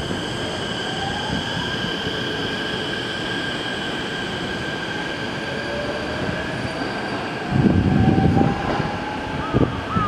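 Keikyu 1000-series electric train pulling out, its traction motors whining with a slowly rising pitch over steady high-pitched squealing. About two-thirds of the way through, a low rumble swells for about a second.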